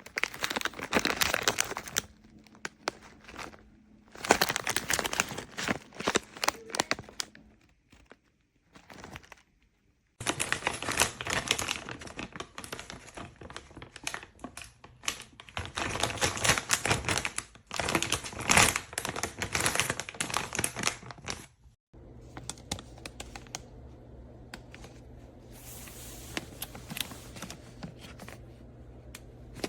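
Plastic crinkling and rustling with dense crackly clicks, in several bursts of a few seconds each, as a plastic moisture-absorber bag is handled. About two-thirds of the way through this gives way to a steady low hum.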